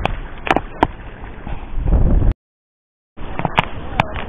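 Wind noise on an action-camera microphone by the sea, with several sharp clicks and knocks. A little over two seconds in, the sound cuts out entirely for nearly a second, then the wind noise and clicks resume.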